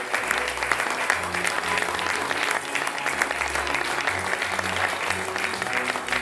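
An audience applauding steadily, many hands clapping at once, with background music playing underneath.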